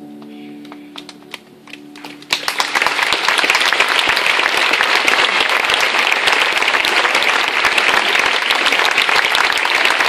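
The last held notes of piano and cello die away under a few scattered claps, then about two seconds in the audience breaks into loud, steady applause.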